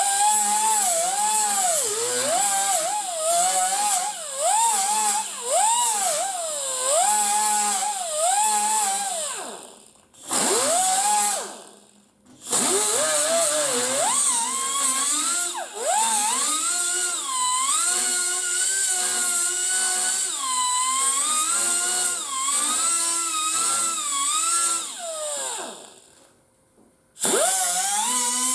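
Handheld power tool whining at high speed against rusted sheet metal, its pitch repeatedly sagging and recovering as it loads up. It stops briefly three times and starts again.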